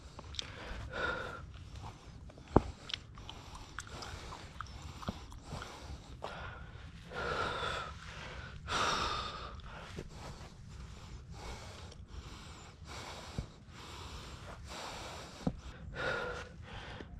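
A hiker's heavy breathing while climbing a steep trail, loud breaths every second or two from the effort of the ascent. A few sharp knocks break in, the loudest a few seconds in.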